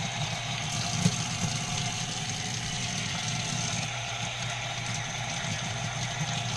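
Tap water running from a utility-sink faucet and splashing over canister filter media as it is rinsed, a steady rush over a low hum, with one light knock about a second in.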